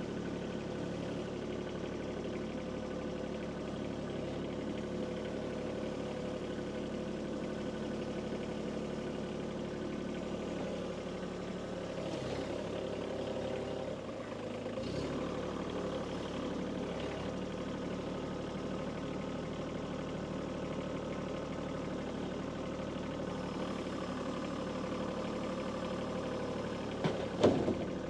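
Kubota B2301 compact tractor's three-cylinder diesel engine running steadily. Near the end come two sharp knocks.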